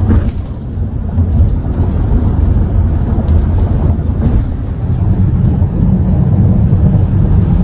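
Loud, steady low rumble of a car on the move, from road and wind noise.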